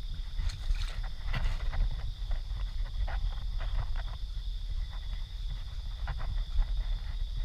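Footsteps wading through a shallow creek, with irregular splashes and the rustle of grass brushing past. Behind them runs a steady high-pitched chorus of night insects.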